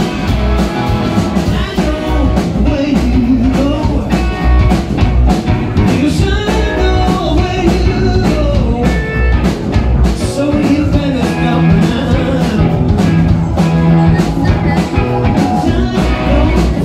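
Live rock band playing loud: distorted electric guitars, bass and drum kit, with a lead vocal sung over them.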